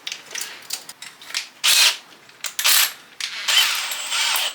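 Hand-held drill boring a hole through 4x2 timber freehand in several short bursts, the longest near the end.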